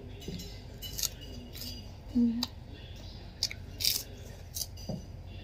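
A crisp fried chip being bitten and chewed close to the microphone: a series of sharp, dry crunches.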